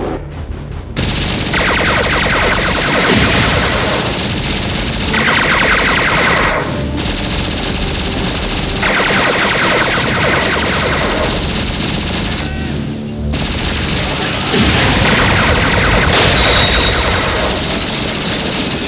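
Anime-style rapid-fire sound effects standing in for a minigun, a dense stream of shots starting about a second in and running in long bursts, with two short breaks about a third and two thirds of the way through.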